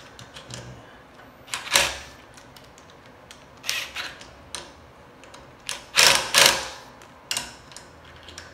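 Cordless impact driver with an 8 mm socket run in several short bursts, the longest and loudest about six seconds in, snugging the screws of an aluminium split-cap brake lever clamp.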